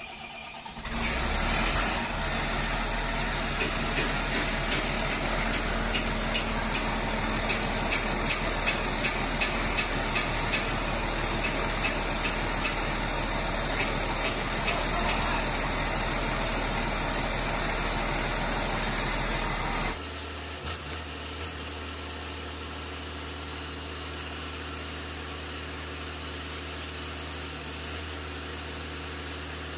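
Volvo D7E six-cylinder diesel engine of a wheel loader running just after its first start following a full overhaul. About a second in it picks up and runs loud and steady. Around two-thirds of the way through the sound drops abruptly to a quieter, even running.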